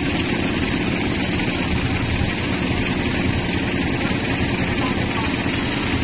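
Band sawmill running steadily while a teak slab is fed through its blade: a continuous low machine drone.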